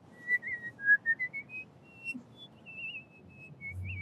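A person whistling a melody: a clear, high single tone stepping and gliding between notes, with quick warbling trills.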